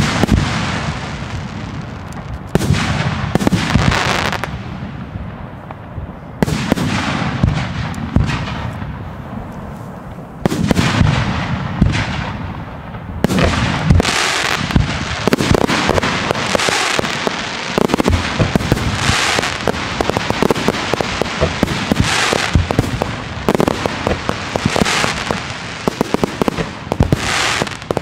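Aerial fireworks bursting with loud bangs every few seconds, each fading away slowly. In the second half, dense rapid crackling from many small effects takes over.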